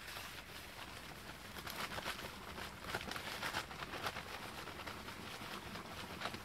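Dry Quikrete fast-setting concrete mix pouring from its paper bag into a post hole: a steady hiss of running powder and grit with many small crackles from the bag.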